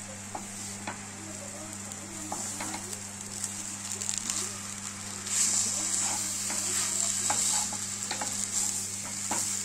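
A wooden spatula stirs grated coconut and sugarcane jaggery in a hot nonstick pan, with a soft sizzle and light scraping clicks. The sizzle gets louder about five seconds in.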